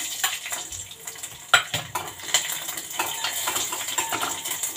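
Whole garlic cloves sizzling in hot oil on a panch phoron tempering in a small steel pot, while a metal spoon stirs and clinks against the pot. A sharp clink about a second and a half in is the loudest sound.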